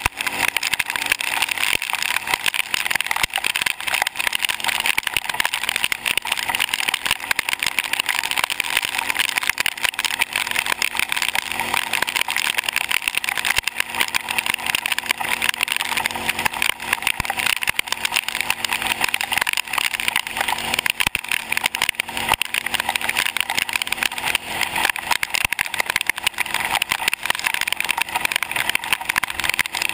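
Kawasaki KFX700 ATV's V-twin engine running at a steady cruise on pavement, heard through a GoPro's waterproof housing under a constant fluttering hiss of wind and tyres on the wet road.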